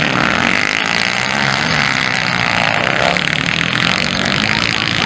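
Motocross bike engines revving hard and easing off as the bikes ride through the turns. The pitch rises and falls continuously.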